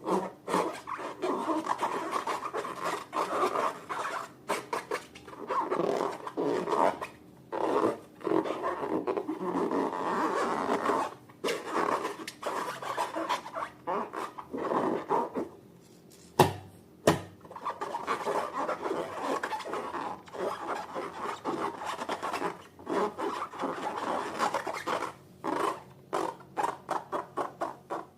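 Slime being mixed and squished by hand, a dense run of short rubbing, squishing strokes with brief pauses. A single sharp snap stands out about sixteen seconds in.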